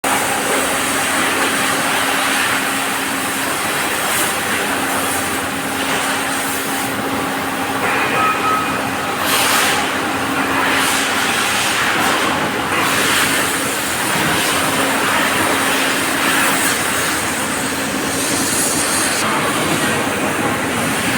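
Steady hiss of a gas welding torch, with a steady low hum underneath that drops out now and then.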